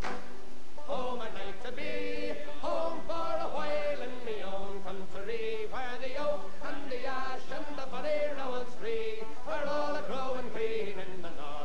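Background music with singing voices: a slow sung melody of held, gliding notes.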